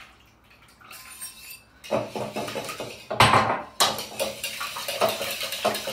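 Wire whisk beating eggs and melted butter in a mixing bowl, its wires clicking and clattering against the bowl. It starts about two seconds in, with one louder clatter just after three seconds, then settles into about four strokes a second.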